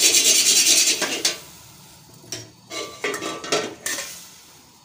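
Steel spoon scraping and stirring around a metal cooking pot (bhagona) on the burner as the last of the water dries off before oil goes in. A quick, loud run of scrapes comes in about the first second, then a few separate scrapes and taps.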